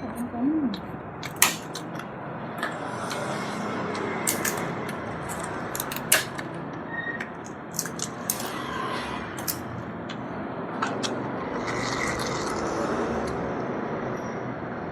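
Scattered sharp clicks and clinks of tableware and food being handled during a meal, over a steady background noise.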